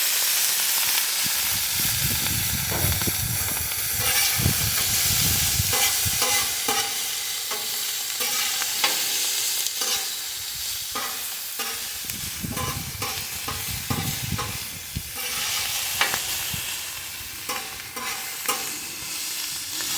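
Sliced steak, onions and bell peppers sizzling steadily in oil on a hot cooking surface, freshly sprinkled with Worcestershire sauce, while a cooking utensil scrapes and clicks against the metal as the food is stirred and tossed.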